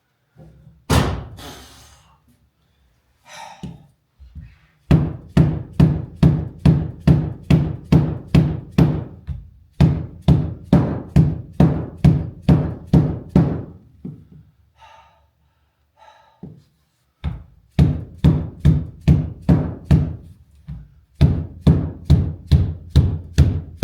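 Rapid, even hammer blows, about three a second, in three runs with short pauses between.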